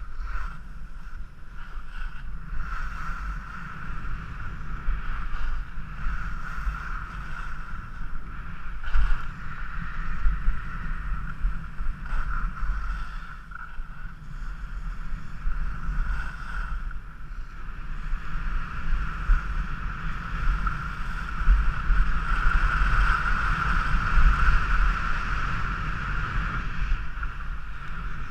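Wind rumbling over an action camera's microphone while skiing downhill, with the steady hiss of skis sliding and carving on groomed snow that swells and eases with the turns. It is loudest a few seconds before the end.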